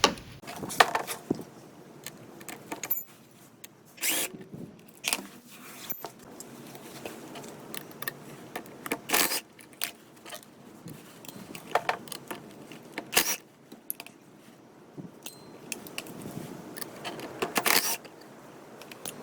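Wrench and socket working the 10 mm bolts and nuts that hold a snow blower's auger blade: irregular sharp metallic clicks and clinks, about a dozen spread out with pauses between them.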